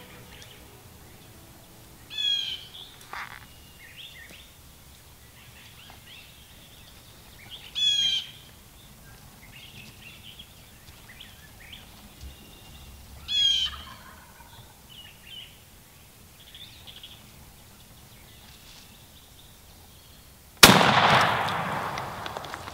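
Wild turkey toms gobbling three times, roughly five seconds apart, with small birds chirping faintly between. Near the end a single shotgun shot, the loudest sound, rings out and fades slowly.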